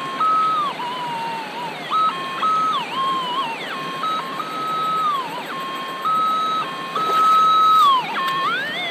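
Minelab SDC 2300 gold detector's audio as its coil is swept along the creek bed: a wavering tone that jumps back and forth between two pitches and glides up and down, loudest in a long high note about seven seconds in.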